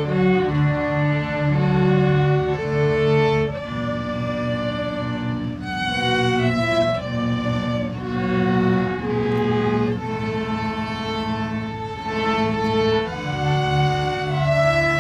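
Music on bowed string instruments, a melody of held notes over lower held notes, changing about once or twice a second.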